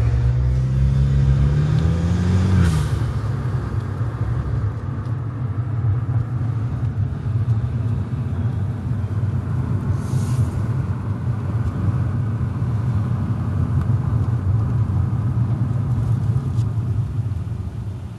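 VW GTI Mk V's turbocharged 2.0-litre four-cylinder engine accelerating, its pitch rising for the first two and a half seconds, then a short hiss as the throttle lifts: the atmospheric blow-off valve venting boost. A second short hiss comes about ten seconds in, and the rest is steady engine and road noise while cruising.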